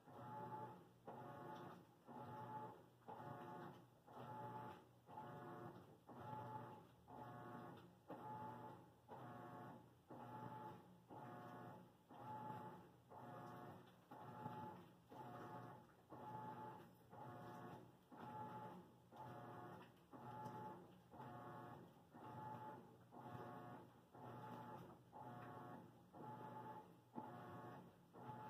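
A faint machine hum that swells and fades in a steady rhythm, about three pulses every two seconds.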